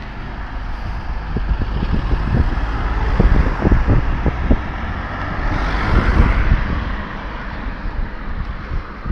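A road vehicle running outdoors and pulling away, its noise swelling about six seconds in, with wind thumping on the microphone.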